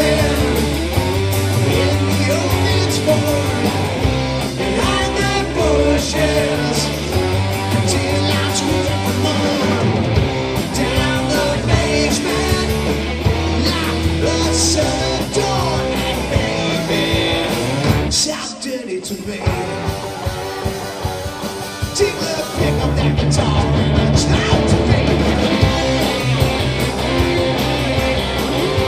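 Live rock band playing: singing over electric guitar and drums. About two-thirds of the way through, the low end drops out for a few seconds before the full band comes back in.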